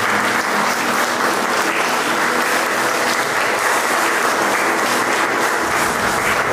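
A congregation applauding together, the clapping steady and even throughout, welcoming the visiting group.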